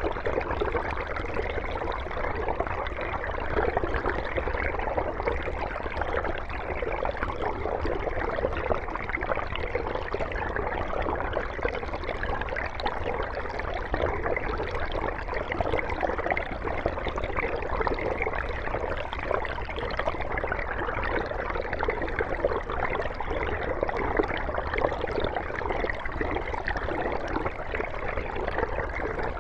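Mountain stream flowing, a steady rush and gurgle of running water with a low rumble underneath and no pauses.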